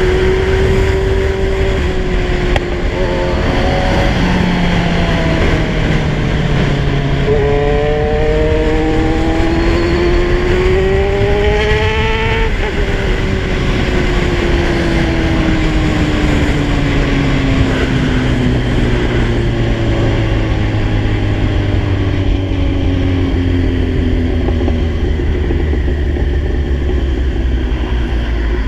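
Kawasaki Z1000 inline-four engine on the move: the engine note climbs in a few rising runs with gear changes up to a peak about halfway through, then falls in one long, slow drop as the bike rolls off. A steady rush of wind noise lies under it.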